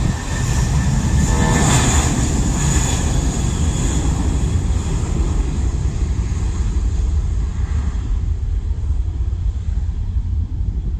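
Airbus A320-family airliner's twin jet engines running at high power as it rolls along the runway. The noise is loud, with a high whine in the first couple of seconds, and it thins out as the jet moves away in the last few seconds.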